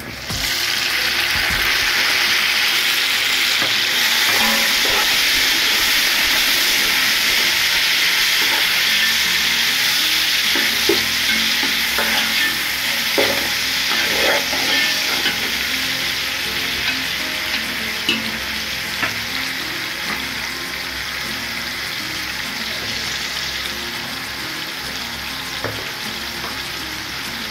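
Sliced onions and whole spices sizzling steadily in hot oil in an aluminium pot, with a ladle stirring and scraping through them. A few sharp knocks of the ladle against the pot come around the middle.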